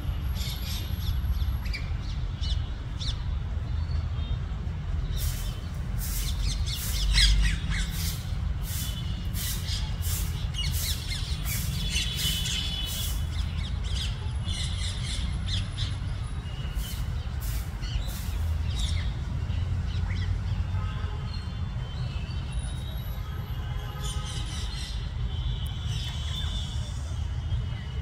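Rose-ringed parakeets giving runs of short, harsh squawks, thickest from about five to nineteen seconds in and again near the end, over a steady low rumble.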